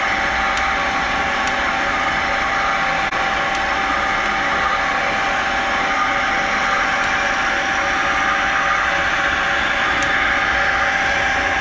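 Homemade electric winch running steadily: a 2 kW electric motor driving two coupled gear reducers, giving a steady whine of several tones over the motor's hum.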